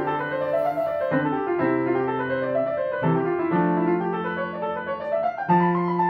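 Background piano music: slow sustained chords and notes changing about once a second.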